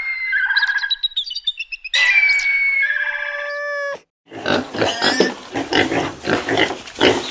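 Animal calls in two parts: clear, held whistle-like calls for about four seconds, then, after a short break, a dense run of rough, rapid calls.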